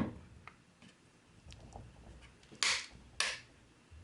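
The power switch on a cordless impact wrench clicks, once sharply at the start and twice more about half a second apart near the end. The switch won't stay in position.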